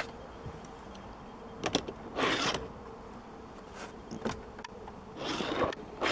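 Handling sounds of a toy setup being arranged: a few sharp clicks and short scraping, rustling sounds, over a faint steady hum.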